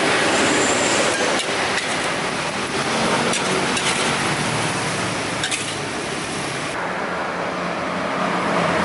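Metal spatula scraping and clinking against an aluminium wok as capcay is stir-fried, over a steady rushing noise. The hiss thins out about two-thirds of the way in.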